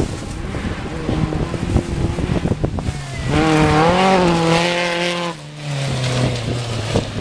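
Rally VW Beetle's air-cooled flat-four engine running hard at high revs as the car passes close on a gravel stage. Its note rises about three seconds in, drops sharply a couple of seconds later, and carries on lower as the car moves away.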